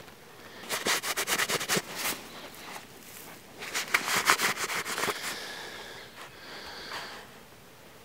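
A backpack zipper being pulled, a rapid run of clicks lasting just over a second, followed a couple of seconds later by a longer rustle of handling at the bag.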